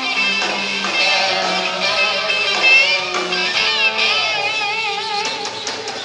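A live rock band playing, with electric guitars strumming over drums.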